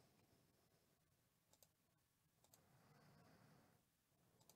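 Near silence: faint room tone with a few faint clicks.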